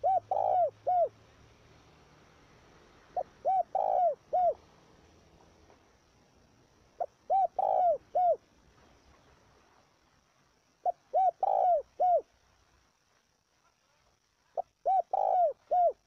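Spotted dove cooing: five phrases, one every three to four seconds, each a quick short note followed by three or four low coos, the middle coo the loudest.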